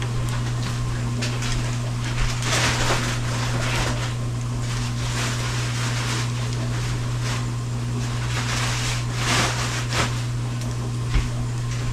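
Bacon sizzling and crackling in a frying pan, with irregular louder pops, over a steady low hum from a running dishwasher.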